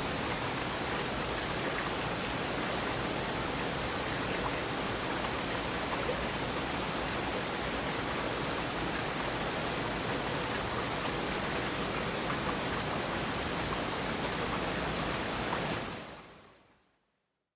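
Water of a stream falling and flowing over a drop, a steady, even rush of water. It fades out about a second and a half before the end.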